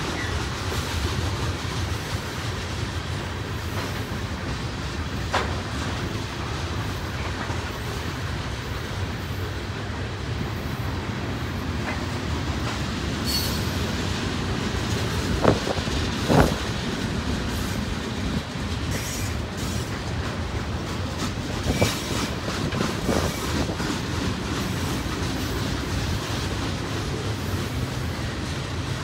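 Freight cars of a long mixed manifest train rolling past at speed: a steady rumble of steel wheels on rail with clickety-clack. A few sharp bangs come from the cars near the middle, and a brief high wheel squeal sounds about halfway through.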